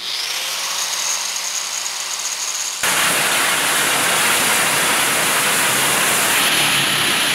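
Handheld angle grinder whining as it winds up to speed, then cutting into tack-welded sheet-metal tin work. About three seconds in, the sound jumps to a much louder, harsh, steady grinding as the disc bites the seam.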